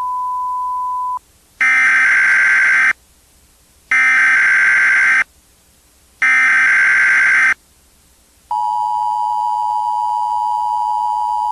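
Emergency Alert System broadcast tones: a steady single beep for about a second, then three buzzy SAME digital header bursts, each about a second and a half long with short gaps between, then the steady two-tone EAS attention signal starting near the end and holding.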